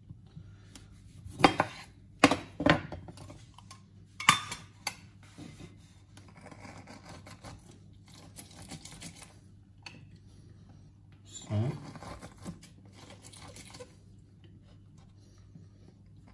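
A kitchen knife cutting limes on a wooden cutting board gives a few sharp knocks in the first few seconds. Then lime halves are squeezed in a stainless-steel hand citrus press, with soft squishing and scraping and one more dull knock partway through.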